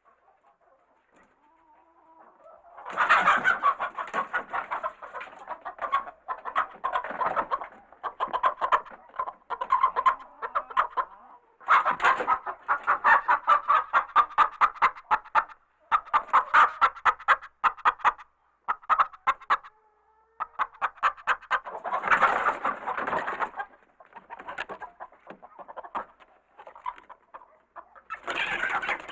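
A coop of chickens clucking and cackling excitedly, many birds at once in rapid runs of calls. The calls come in loud flurries with brief lulls between them.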